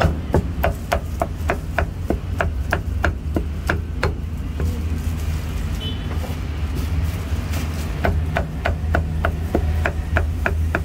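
A cleaver chopping through meat onto a thick round chopping block: quick, even knocks about four a second, with a pause of a few seconds in the middle before the chopping resumes.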